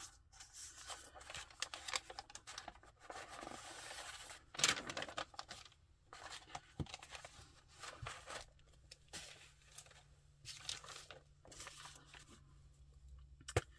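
Paper being handled at close range: journal pages turned and loose sheets slid and shuffled, with a run of short rustles and crackles and one louder crackle about a third of the way in.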